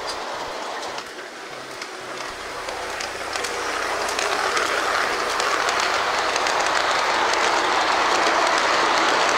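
G-scale model freight train rolling past, its metal wheels running on the track with frequent sharp clicks. It grows louder from about a second in and holds steady once the diesel locomotives and boxcars are passing close by.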